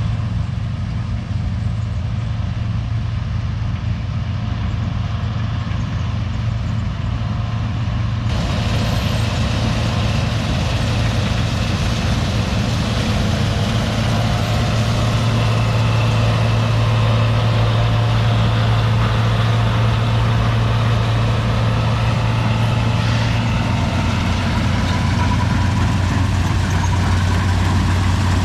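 Combine harvester running steadily while harvesting soybeans: a constant low engine hum with a broad mechanical noise above it, which gets louder about eight seconds in.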